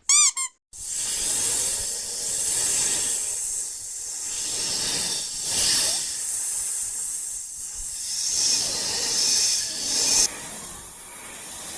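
Two quick, short pitched blips, then a long hiss that swells and fades several times, strongest in the high range.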